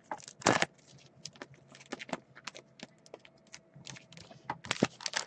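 Scattered light clicks and taps at an irregular pace, with one louder tap about half a second in.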